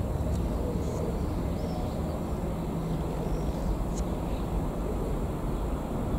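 Steady low rumble of a train approaching in the distance, with a few faint short high chirps.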